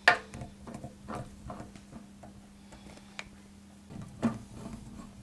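Chrome kitchen mixer tap heads being gripped and turned by hand: a sharp knock as the first head is taken, then scattered light clicks and ticks of the metal heads turning, with another knock about four seconds in as the hand works the other head.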